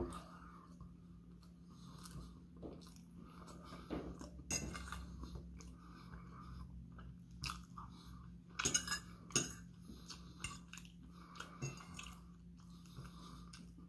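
A metal fork clinking and scraping against a ceramic dinner plate while a person chews food between bites, in scattered short clicks, a few of them sharper.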